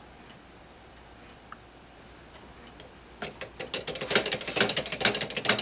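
3D-printed plastic grasshopper escapement of a Harrison-style clock running on its maintaining spring, its pallets clicking against the escape wheel teeth. Quiet at first, then about three seconds in a fast run of sharp clicks, several a second, starts and keeps going.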